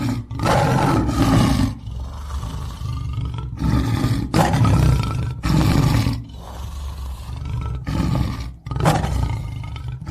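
Recorded lion roaring and growling, a run of loud, rough roars one after another with short breaks between them.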